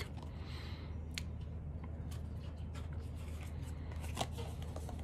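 Quiet handling sounds: faint rustling and a few light clicks, over a steady low hum.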